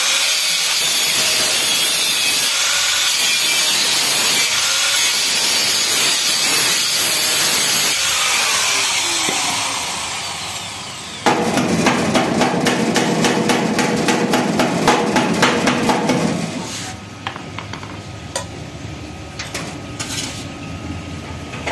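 Power drill working on a steel gate near the floor: about ten seconds of harsh, even grinding noise, then after a brief dip about five seconds of rapid rattling strikes over a motor hum, stopping about sixteen seconds in. Scattered lighter metal knocks and clicks follow.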